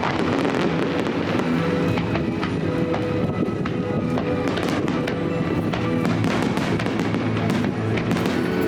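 Aerial fireworks bursting and crackling, many small pops and crackles in quick succession, under background music with held tones.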